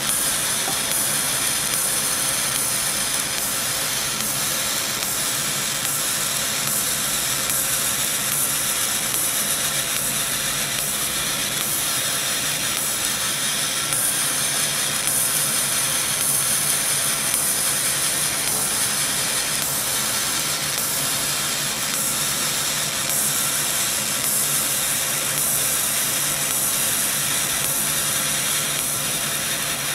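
CO2 laser cutting machine running as it cuts a pattern into 0.3 mm brass sheet: a steady, even hiss.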